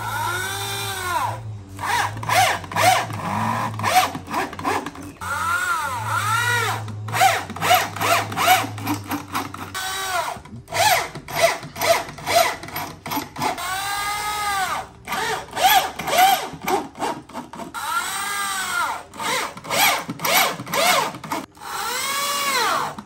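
Corded electric drill driving screws into the top panel of a wooden subwoofer cabinet, the motor whining up and falling away in short trigger pulls, over and over.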